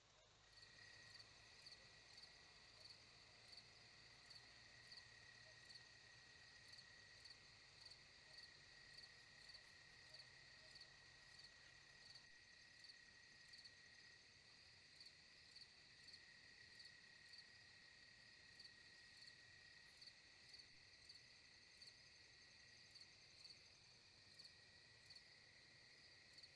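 Faint night chorus of insects, likely crickets: a steady high-pitched trill with a regular chirp about once a second.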